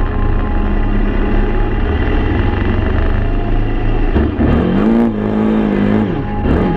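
Kawasaki ATV engine running at speed, with wind rumble on the mounted microphone. About four seconds in, the engine revs rise and fall several times as the quad accelerates hard on loose dirt.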